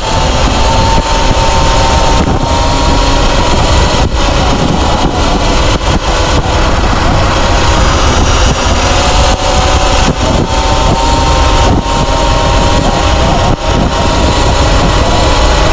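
Sur-Ron electric dirt bike being ridden: a loud, steady rush of wind and road noise, with a faint high whine from the electric motor.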